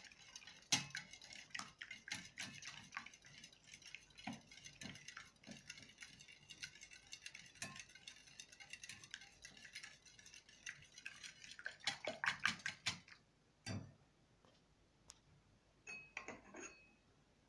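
Wire balloon whisk beating eggs in a ceramic bowl: a rapid, light clicking and tapping of the wires against the bowl, ending in a flurry of louder clicks about three-quarters of the way in, followed by a few faint knocks.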